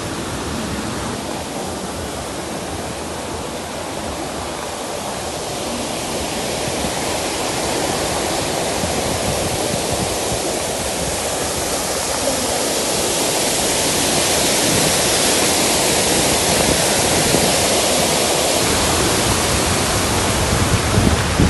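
Steady rushing noise, even across low and high pitches, growing slowly louder over the stretch.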